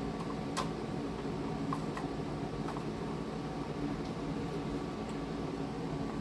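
A few faint clicks and taps of hardware being handled as a graphics card is fitted into a PC case, over a steady hum.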